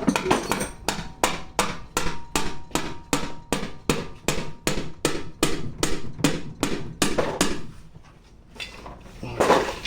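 A hammer tapping on the Polaris RZR 800 engine's side cover to work it loose: quick, evenly spaced taps, about four a second. The taps stop about seven and a half seconds in, and one more knock comes near the end.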